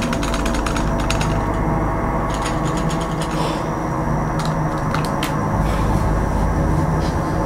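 A rapid run of small mechanical clicks, then scattered single clicks, over a steady low drone.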